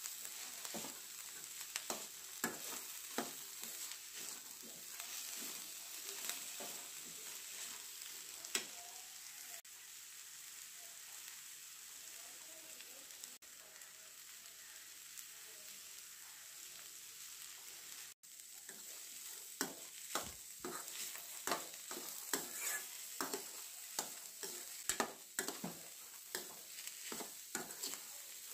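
Sessile joyweed (ponnanganni keerai) greens sizzling in a stainless steel pan while a steel spoon stirs them, scraping and clicking against the pan. The stirring stops for several seconds in the middle, leaving a quieter sizzle, then picks up again.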